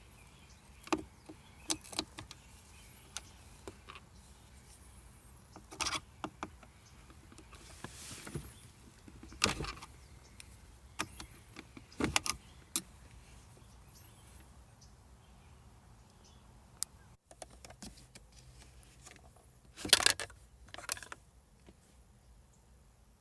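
Hand work with tools and parts: scattered, irregular clicks, knocks and rattles. Louder, longer noisy bursts come about eight to ten seconds in and again about twenty seconds in.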